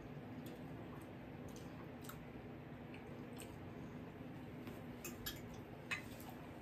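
Quiet eating sounds: chewing, with scattered light clicks and taps, the sharpest about six seconds in.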